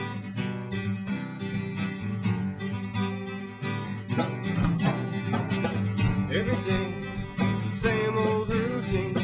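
Theme-song music: acoustic guitar playing an instrumental intro, with a wavering melody line coming in about four seconds in.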